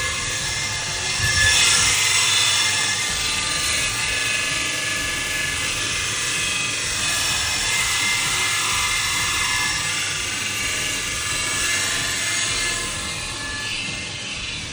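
Belt grinder running and grinding steel: a steady whine over a continuous hiss.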